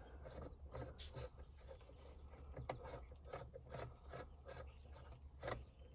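Faint scraping and small clicks of a hand tool working at the T30 Torx screws behind a steering-wheel airbag, with one louder click near the end.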